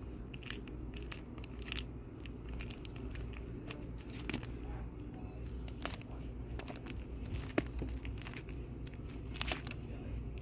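Comic books in plastic sleeves being flipped through by hand in a cardboard box: scattered soft crinkles and ticks of the bags knocking together, over a low steady hum.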